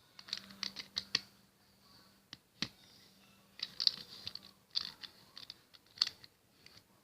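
Plastic Rubik's cube pieces clicking and rattling as they are handled and fitted back into the cube, in quick clusters of sharp clicks.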